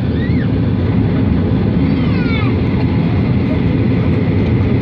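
Cabin noise of a Boeing 737-800 taxiing: a loud, steady deep rumble from its CFM56-7B engines and the rolling airframe, heard from inside the cabin. A few faint short gliding tones sound near the start and about two seconds in.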